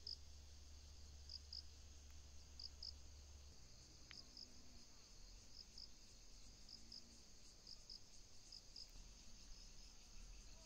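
Faint, steady chorus of insects trilling, with short high chirps that repeat in twos and threes about every second and a half. A low rumble underneath stops about three and a half seconds in.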